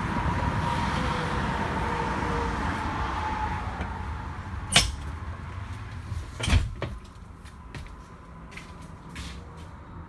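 Steady outdoor background noise with a faint steady hum. Then come two sharp knocks about a second and a half apart as the motorhome is entered, and the sound turns quieter, with a few light clicks.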